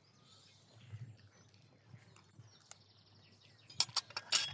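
Faint outdoor background, then a quick run of sharp clicks and crackles near the end.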